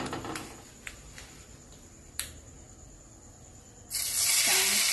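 Hot coconut-oil tempering of mustard seeds, dried red chillies and curry leaves poured into the curry, breaking into a sudden loud sizzle about four seconds in. Before that, only a few faint clicks.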